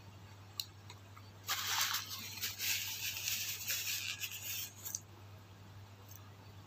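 Crisp crackling crunch of a fried lumpia spring roll's wrapper being chewed, lasting about three and a half seconds, with a single click just before it. A steady low hum sits underneath.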